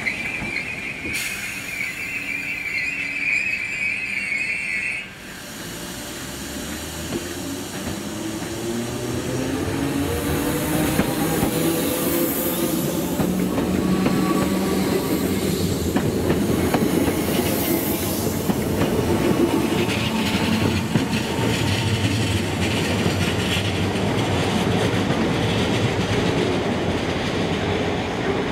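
Merseyrail electric multiple unit pulling out along the platform: a steady high squeal for the first five seconds, then the traction motors' whine rising in pitch as the train gathers speed, loudest as it passes close, with the wheels running on the rails.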